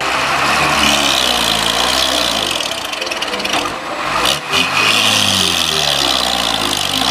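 Heavy truck engine sound, a dump truck's diesel running loud. Its pitch sinks over the first few seconds, then after a short break with a few clicks about four seconds in it revs up again.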